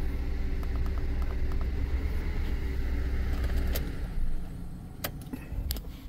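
Ford 4.6-litre SOHC V8 idling, a steady low rumble heard from inside the truck's cab, which drops away about four seconds in. A few sharp clicks come near the end.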